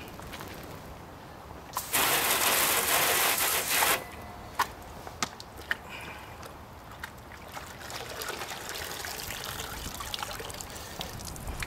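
Water spraying onto a car's painted body in a loud two-second burst, then trickling and dripping off the panel's lower edge onto the pavement.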